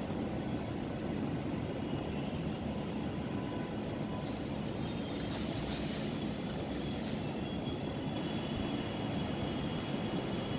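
Steady low background rumble with a faint high steady tone, like room machinery or ventilation noise.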